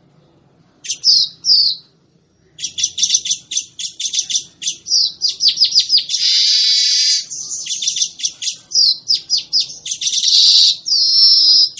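Manyar (weaver bird) singing: a fast run of short, clipped chattering notes, broken by a long buzzy note in the middle and another near the end.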